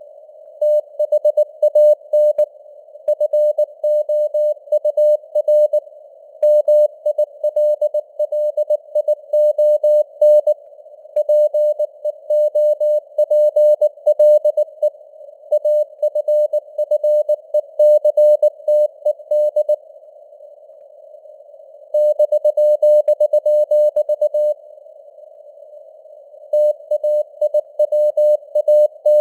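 Morse code (CW) at 19 words per minute: a single mid-pitched tone keyed on and off in dots and dashes, over a narrow band of simulated radio hiss with the signal strength fading up and down (QSB). The keying stops twice for about two seconds in the second half, leaving only the hiss.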